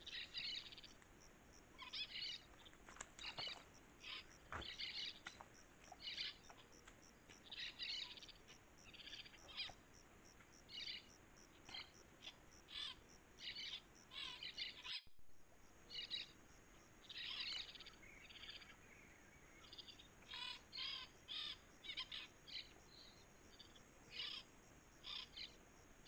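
Faint background recording of Brazilian forest birds chirping and singing in short phrases one after another, over a thin steady high whine, with a brief dropout about halfway through.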